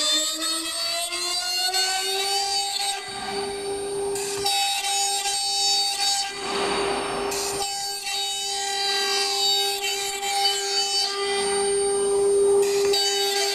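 CNC router spindle whining as it finishes spinning up to speed over the first couple of seconds, then running at a steady pitch while its bit cuts into a wooden board. The whine breaks twice for a second or so into rougher cutting noise.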